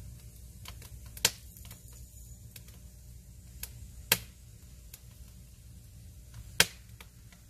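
Firewood crackling and popping in a wood-fired furnace: scattered small crackles with three sharp, loud pops, about a second in, after about four seconds and near the end, over a steady low rumble.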